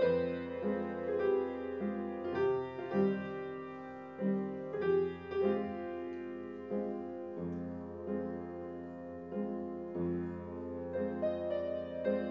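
Gentle piano music, single notes and chords struck about every half second to second and left to ring.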